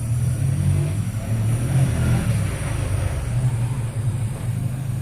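A motor or engine running with a steady low hum.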